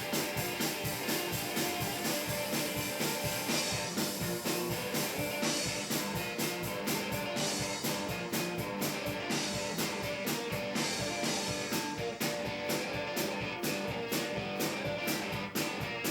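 Hill-country blues band playing: guitar riffing over a steady, driving drum beat.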